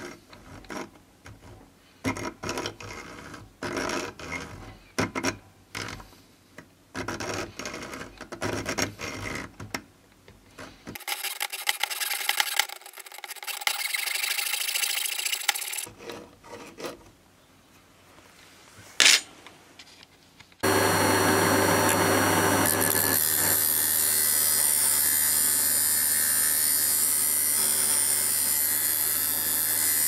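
Fine-bladed hand saw, like a jeweller's saw, cutting a small metal tube clamped in a vise, in quick uneven rasping strokes. About two-thirds of the way through there is a sharp click, then a drill press with a thin disc in its chuck starts and runs with a steady hum and high whine.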